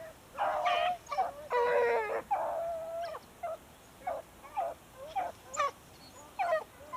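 Rabbit-hunting dogs baying and yelping: a quick run of short, pitched cries in the first couple of seconds, then scattered single yelps. This is the dogs giving voice as they run a rabbit.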